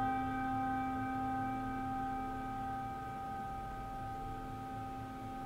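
A struck bell-like metal instrument ringing out: one low tone with several higher overtones held steady and slowly fading.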